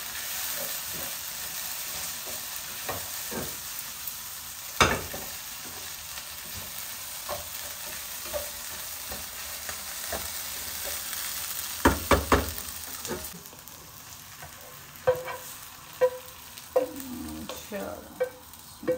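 Vegetables sizzling in a hot pan as they are stirred, with a few loud knocks of a utensil against the pan. About two-thirds through the sizzle drops away, and a run of sharp taps on the pan follows.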